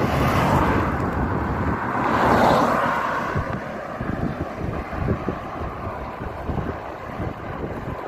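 Wind buffeting the microphone and road noise while travelling along the road, with a passing vehicle swelling and fading about two to three seconds in.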